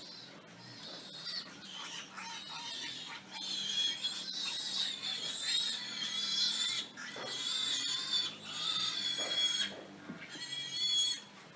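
Pigs squealing and screaming: long, high-pitched squeals that grow loud a few seconds in and run almost without a break, with one more short squeal near the end.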